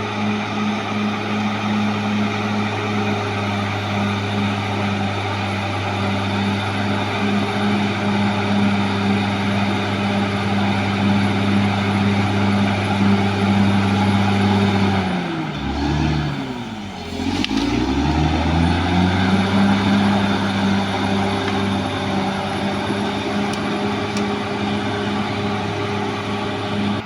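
Caterpillar D6R XL bulldozer's diesel engine running steadily at working speed. About halfway through, the engine speed drops briefly and then climbs back up.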